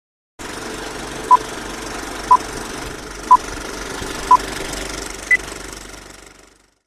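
Film-leader countdown sound effect: the steady running noise of a film projector with a short beep every second, four at one pitch and a fifth an octave higher, then the projector noise fades out.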